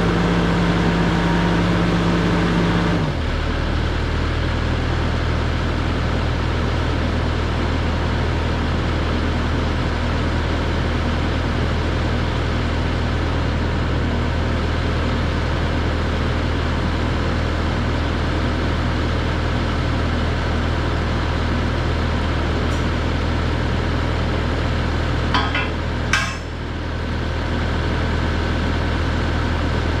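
Takeuchi TL6R skid steer's diesel engine running, throttled down about three seconds in and then idling steadily. Two sharp metal clinks come near the end.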